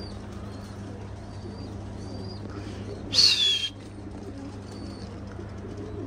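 Domestic pigeons at the loft: faint cooing and a few short high chirps over a steady low hum. A little after three seconds there is one loud, short screech that falls in pitch.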